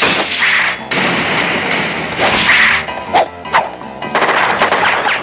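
Animated-series sound effects of loud crashing and hitting, with music underneath and a few sharp knocks about three seconds in.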